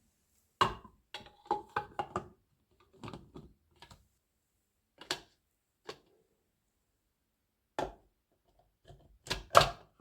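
Scattered knocks and clicks of dishes and utensils being handled at a kitchen counter during breakfast preparation, with a quick run of light clatter early on and the loudest pair of knocks near the end.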